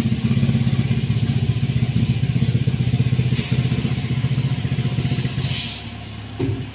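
Mini excavator's diesel engine running with a steady rapid pulse, going quieter about five and a half seconds in; a short knock near the end.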